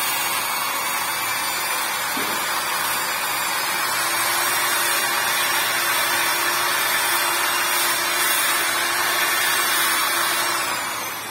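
Handheld electric power tool smoothing the edge of a pine board, running steadily at full speed, then switched off near the end and winding down with a falling whine.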